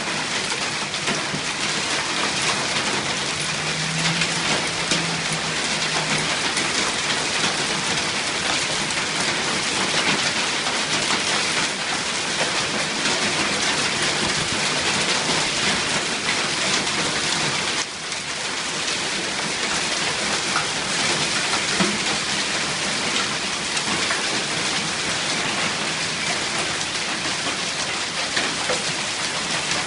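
Hail and heavy rain pelting down in a storm: a dense, steady clatter of stones and drops hitting surfaces.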